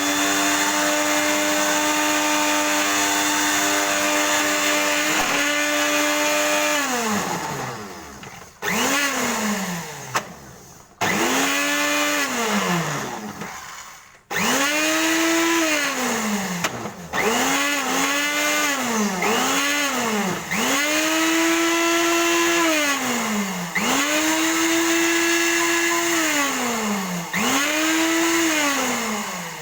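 Handheld electric power tool motor run in repeated trigger pulls: it spins up to a steady high whine, holds for one to several seconds, then winds down in falling pitch as the trigger is released. Some pulls are long, others are short blips, about ten in all.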